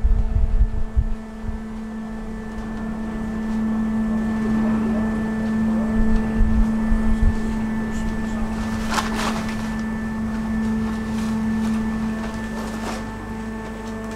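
A passenger ferry's engine humming steadily as it comes in slowly to the pier. There is wind on the microphone in the first second or so, a knock about nine seconds in and a lighter one near the end.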